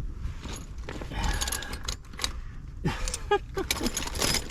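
Metal hand tools and sockets clinking and rattling as someone rummages through a toolbox looking for a socket.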